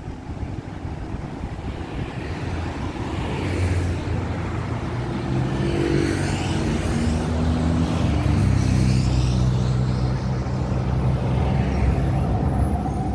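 Street traffic with cars passing, and a Rome articulated tram approaching along the track and pulling into the stop, its running hum growing steadily louder.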